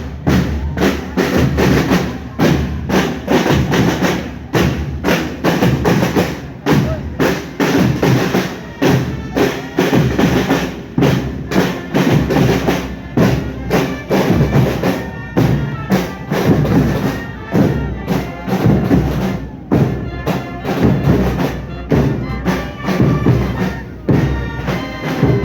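Fanfarra marching band playing, with bass and snare drums beating a steady march rhythm. Sustained melodic notes join about halfway through.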